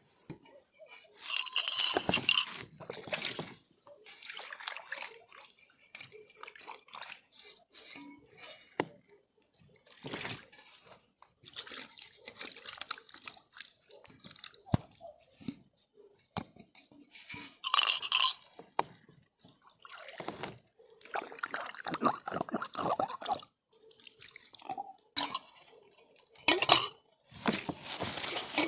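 Irregular clinks of a utensil against a metal camping pot, with wet slurping sounds, while instant noodles are eaten from it.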